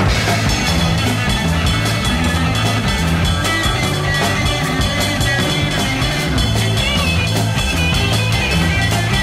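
Rock music with electric guitar, bass and drums at a steady beat.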